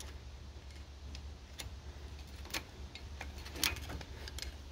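A screwdriver clicking and scraping against metal inside the front wheel hub as a wheel bearing is fished out: a handful of light, sharp clicks about a second apart, over a faint low hum.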